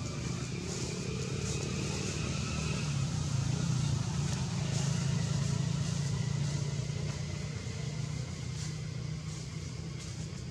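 A steady low motor hum, like a vehicle engine running, that swells slightly through the middle and eases off near the end.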